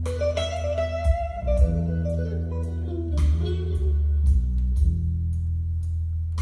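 Guitar music with a bass line, played from a vinyl record on a MAG-LEV ML1 levitating turntable through a pair of stand-mounted hi-fi speakers and picked up in the room.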